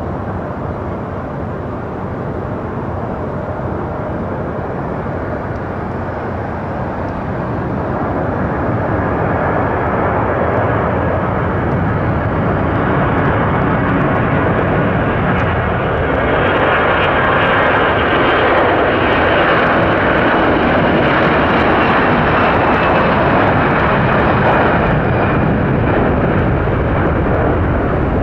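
Airbus A340-300's four CFM56-5C turbofan engines at takeoff thrust during the takeoff roll. The steady jet engine noise grows louder about a third of the way in and again past the middle, reaching higher in pitch as the airliner speeds down the runway toward lift-off.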